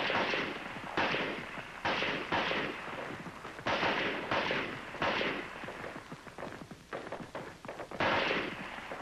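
M14 rifles firing 7.62 mm NATO rounds in a rapid-fire string: sharp single shots about every second, unevenly spaced, each with a short echoing tail. After a pause of about three seconds there is one more shot near the end.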